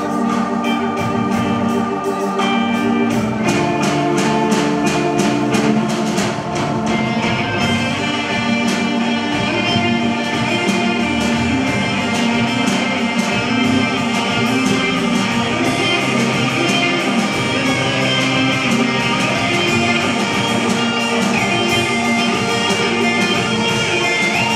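Live rock band playing an instrumental passage: electric guitars over a drum kit with a steady beat. About seven seconds in, the sound fills out, with brighter cymbals and guitar.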